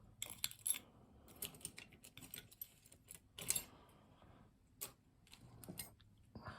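Small metal tools clicking and clinking in irregular clusters, as lock picks and a tension wrench are rummaged through and handled; the loudest clatter is about three and a half seconds in.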